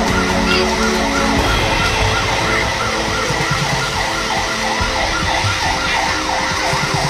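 Emergency vehicle siren wailing in a fast yelp, its pitch sweeping up and down about two to three times a second, over a steady background rush.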